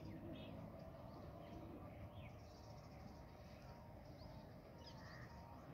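Faint outdoor ambience: scattered short bird calls and chirps over a low, steady background hum.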